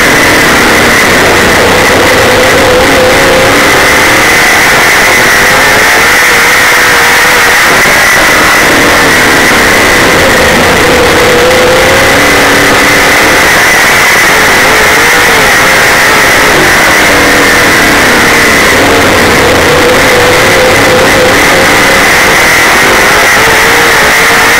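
Super late model dirt race car's V8 engine running at racing speed, heard very loud from inside the car. Its note rises and falls several times as the driver gets on and off the throttle around the track.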